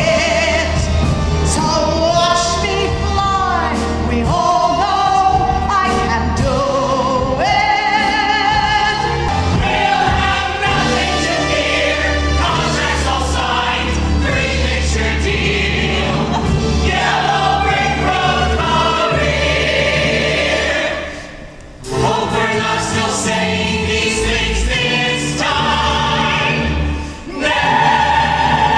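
Musical-theatre ensemble of men and women singing together with musical accompaniment. The music drops almost to a pause about 21 seconds in and dips briefly again near the end.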